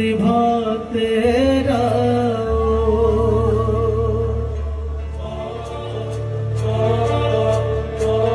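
Live South Asian devotional-style vocal music: a man sings an ornamented line that bends in pitch, then holds a long note, accompanied by harmonium over a steady low drone. Faint regular ticks of light percussion come in about halfway through.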